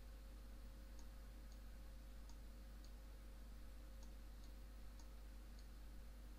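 Faint computer mouse clicks, about eight scattered irregularly, over a steady low electrical hum from the recording setup.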